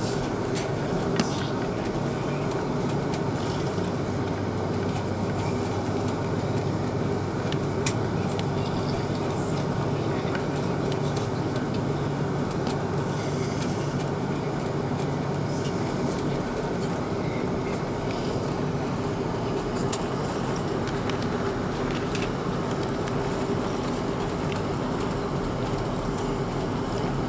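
Steady cabin noise inside an Airbus A330-200 rolling along on the ground: an even rumble with a low engine hum from its Rolls-Royce Trent 700 engines at low thrust, and a few brief knocks and rattles, the loudest about a second in.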